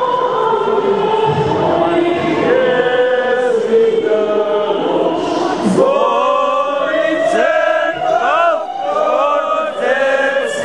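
Many voices singing together in chorus, with several pitches overlapping, some notes held and some sliding.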